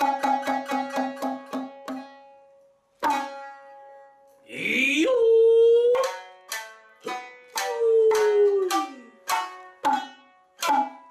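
Shamisen plucked with a bachi: a fast run of repeated notes that slows and stops about two seconds in, then single plucked notes. About four seconds in, a nagauta singer's voice slides up and holds a note, then later glides down, with shamisen notes between.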